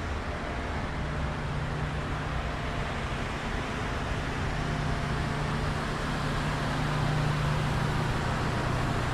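Steady mechanical drone with a low hum under a broad rushing noise, growing slightly louder toward the end.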